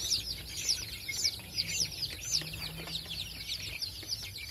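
A brood of young chicks peeping continuously, many short, high, downward-sweeping peeps overlapping several times a second.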